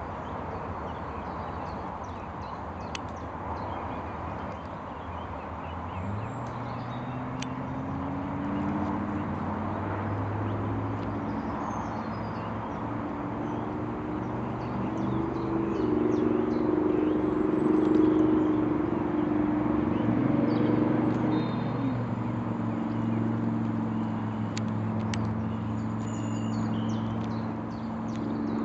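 A motor's steady, low drone that comes in about six seconds in, grows louder toward the middle and then fades somewhat, over a steady background hum, with faint small-bird chirps.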